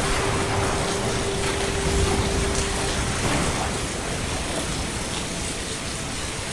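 Steady rain falling, an even hiss without breaks. A faint steady hum sounds along with it for about the first three seconds.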